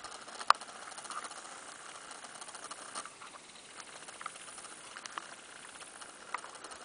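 Small wind-driven ripples lapping and dripping against a kayak hull, a soft steady patter with a few sharp drip-like ticks, the clearest about half a second in.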